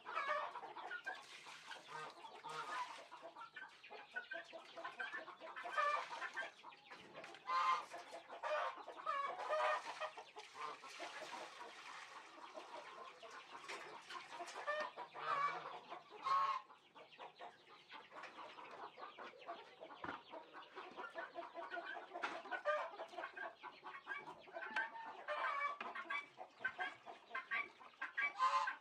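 Barnyard fowl clucking, many short calls overlapping, with a few louder calls standing out.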